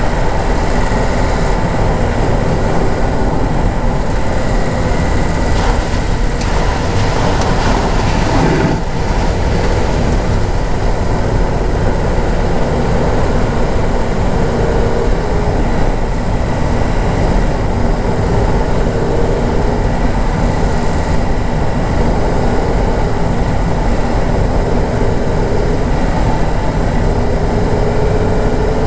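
A vehicle driving slowly over a rough dirt track, heard from inside the cabin: a steady rumble of engine and tyres, with one brief knock about eight seconds in.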